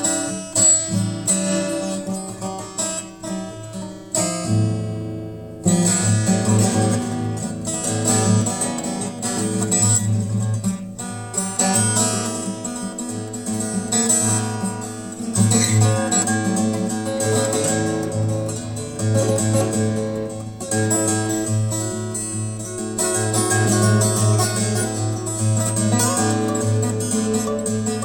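Background music led by acoustic guitar, plucked and strummed.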